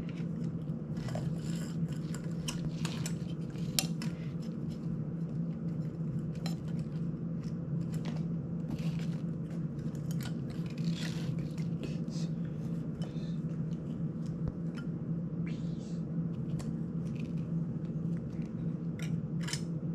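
Small clicks, taps and rustles of hard plastic and carbon-fibre drone parts being handled and fitted together by hand, at irregular intervals, over a steady low hum.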